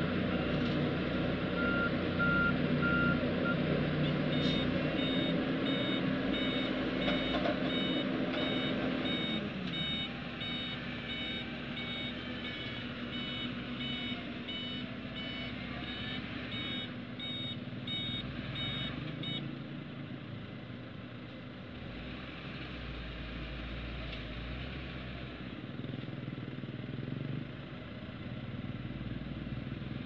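Heavy diesel construction machinery running steadily, with a reversing alarm beeping at an even pace from a few seconds in until about two-thirds through. The engine's pitch drops about a third of the way in.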